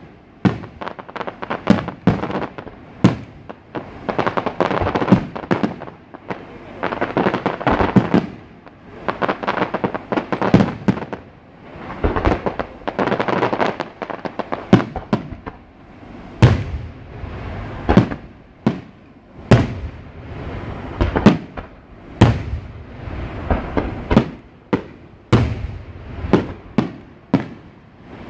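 Fireworks display: aerial shells bursting with sharp bangs, mixed with stretches of dense crackling. In the second half the bangs come more evenly, about one every second and a half.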